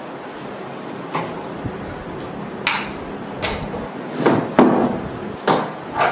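Knocks and bumps from handling a large flat-screen TV panel in its plastic wrap on top of its cardboard box, about seven of them, coming faster in the second half.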